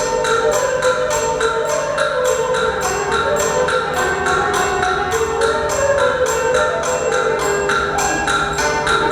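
Chime-bell music: struck bells and other mallet percussion playing a melody over an even beat of about three strikes a second, the notes ringing on between strikes.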